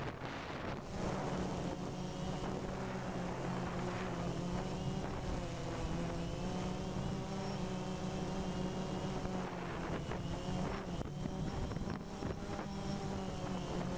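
DJI Phantom 2 quadcopter's motors and propellers buzzing in flight: a steady, pitched hum whose pitch drifts a little as the throttle changes, over a rush of wind.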